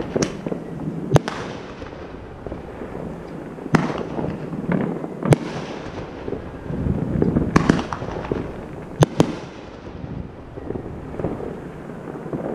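Consumer fireworks show going off: about seven sharp bangs a second or two apart, two of them in quick succession about three-quarters through, over continuous crackling and rumble.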